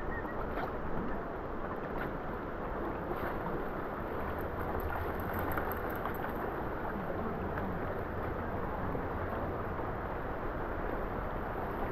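Steady rush of river water flowing over shallow rocky riffles.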